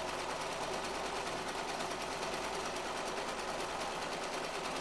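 Brother sewing machine running steadily at speed, its needle stitching through canvas.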